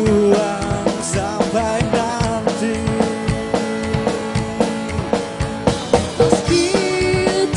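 Live rock band playing: a drum kit keeping a steady beat under electric guitar, with a man singing into the microphone.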